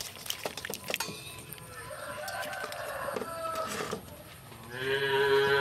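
A rooster crowing: a gliding call in the middle, then a louder, held crow near the end. At the start come light splashes and knocks as a gourd is washed in a metal basin of water.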